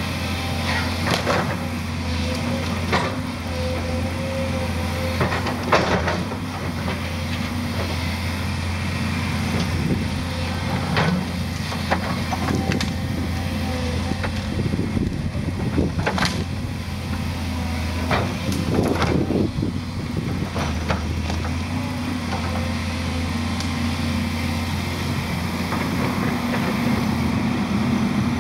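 Volvo 210 tracked excavator's diesel engine running steadily as it works a brush pile, with the sharp cracks and snaps of branches and logs breaking under the bucket every few seconds.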